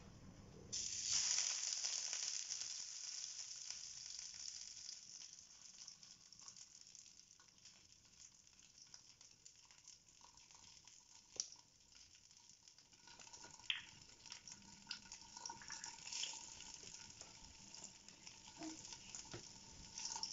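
A patty sizzling in hot oil in a frying pan: the sizzle jumps up sharply about a second in as the patty goes into the oil, then slowly settles to a steady fry. A few sharp clicks come near the middle.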